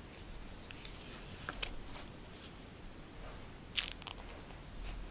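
Faint crinkling and tearing of small paint-maker color strips being pulled apart by hand, in a few short scratchy rustles, the loudest about four seconds in.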